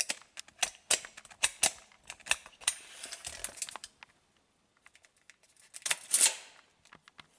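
Hand tools being handled: a run of sharp clicks and rattles for the first four seconds, then a louder clatter about six seconds in.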